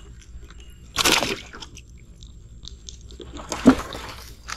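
Net fish trap rustling and scraping as a hand works inside it to take out a snakehead, in two short bursts: one about a second in and one about three and a half seconds in, the second with a sharp click.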